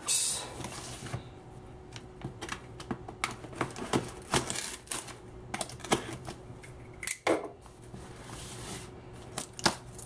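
Hands handling a cardboard shipping box as it is opened: scattered taps, clicks and rustles of cardboard and packing tape, with one louder scrape a little after seven seconds.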